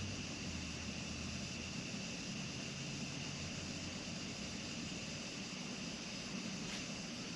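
Steady background hiss with a low hum, unchanging throughout, and one faint tick near the end.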